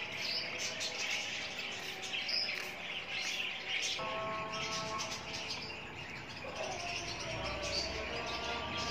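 Many small birds chirping continuously, with quick overlapping chirps. A faint held tone joins in about halfway through.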